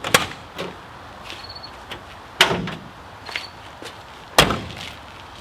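Ford Ranger pickup's door and hood latch being worked to pop the hood: three sharp clunks, about two seconds apart.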